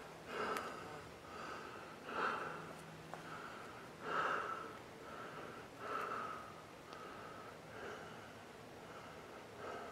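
A man breathing close to the microphone: soft, repeated breaths about every two seconds, a few of them heavier than the rest.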